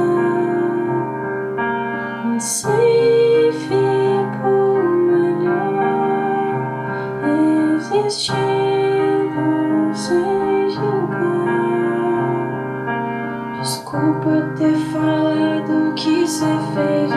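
Portable electronic keyboard playing sustained piano-like chords, with a woman singing a slow melody in Portuguese over it.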